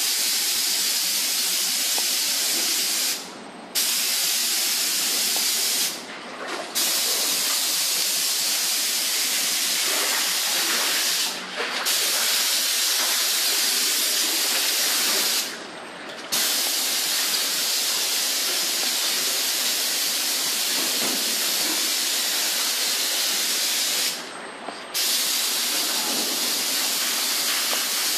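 Hose-fed paint spray gun hissing steadily as protective coating is sprayed. The hiss breaks off briefly five times, each for under a second, between spray passes.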